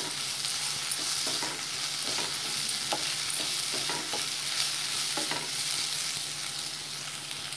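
Onions and ginger-garlic paste sizzling steadily in hot oil in a nonstick pan, stirred with a wooden spatula that scrapes and taps against the pan now and then. The sound cuts off suddenly at the end.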